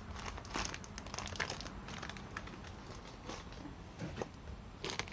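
Clear plastic wrapping crinkling quietly in scattered short rustles as a wrapped stove part is handled in its packing box.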